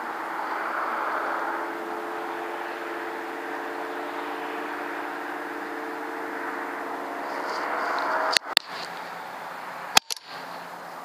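A steady hum with hiss and a few held tones. About eight seconds in it is broken by two sharp clicks in quick succession, and another sharp click comes about ten seconds in, each followed by a brief dropout in the sound.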